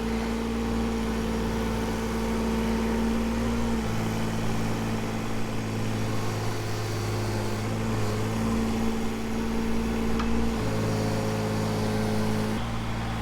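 Kubota KX018 mini excavator's diesel engine running steadily under work while grading soil, its engine note shifting a few times as the load changes.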